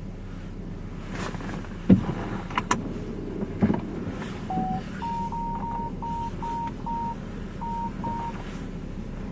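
A vehicle's engine running, heard from inside the cab, with two knocks and then a run of short electronic beeps from the vehicle's warning chime.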